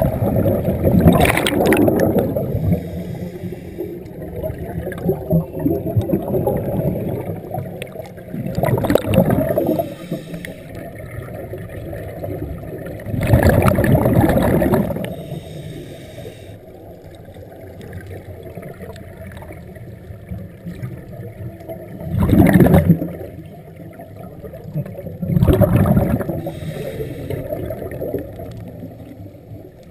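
Scuba divers breathing underwater through their regulators: about five loud gurgling rushes of exhaled bubbles, a second or two each, over a steady low underwater rumble.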